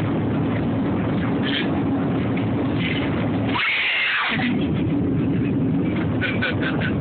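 Steady road and engine noise inside a car's cabin. About halfway through there is a brief rustle as the phone is moved against clothing. Near the end a quick run of short high pulses begins, about six a second.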